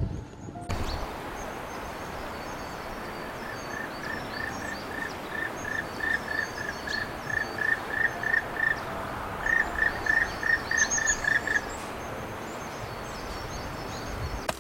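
Wild animal calls: a short note repeated about three times a second for several seconds, with higher, scattered chirps, over a steady rushing noise.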